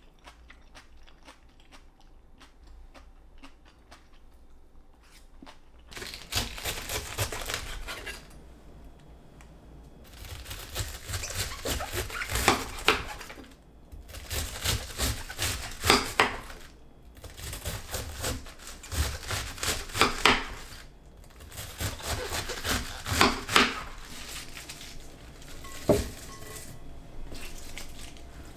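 Chef's knife slicing a wedge of raw cabbage into thin shreds on a cutting board. The cuts come in bursts of quick, crisp crunching strokes with short pauses between them, starting about six seconds in after a quiet stretch. A single sharp knock near the end.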